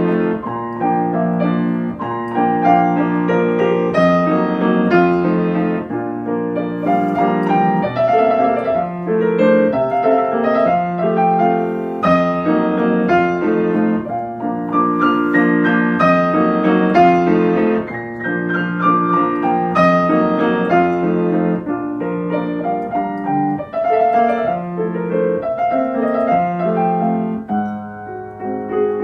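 Solo piano playing a waltz.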